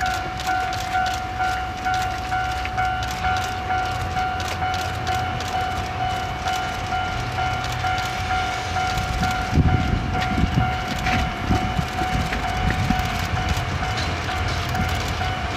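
Diesel train at a station: a steady engine rumble with a constant whine over it. About nine and a half seconds in, a louder, uneven rumble joins it.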